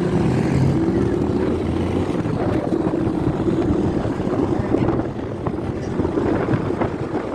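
Engine of a moving vehicle running steadily, heard from on board, with a constant low drone and road or wind rumble.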